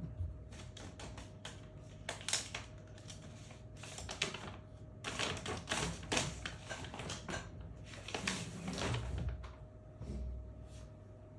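Rapid irregular clicking and scratching in clusters, densest between about five and nine and a half seconds in, over a faint steady hum.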